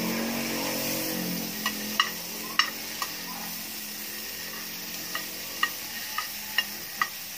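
Butter melting and sizzling in a hot metal frying pan, with a steady hiss that is loudest in the first two seconds. A metal spoon pushing the butter around taps and scrapes against the pan about ten times.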